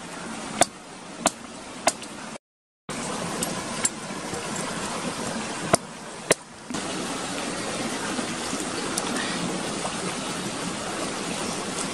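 Large knife chopping into the husk of a green coconut: sharp strikes about every two-thirds of a second at first, then a few more spaced out, stopping after about six and a half seconds. A steady rush of flowing water runs underneath.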